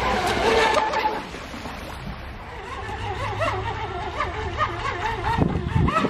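Radio-controlled speed boat running across the water, heard as a noisy rush in the first second that then fades. From about three seconds in, repeated high-pitched giggling laughter.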